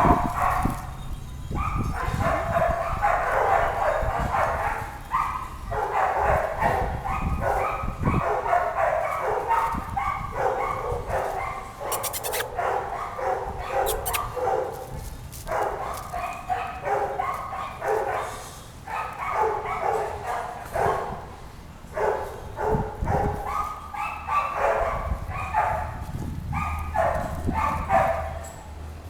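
Dog barking repeatedly in quick runs, with brief pauses between them.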